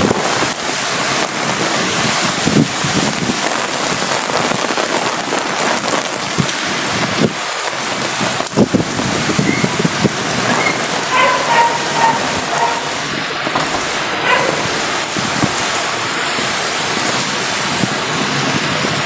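Heavy rain pouring down, a loud steady hiss of rain striking the pavement and street.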